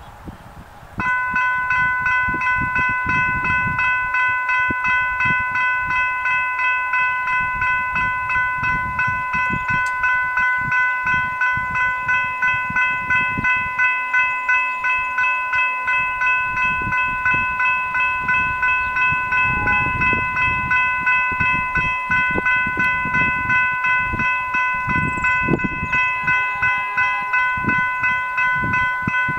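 Level-crossing warning bells, General Signals Type 3 electronic bells, start about a second in and ring on in quick, even, ringing strikes. They signal that the crossing has activated for an approaching train while the boom gates come down.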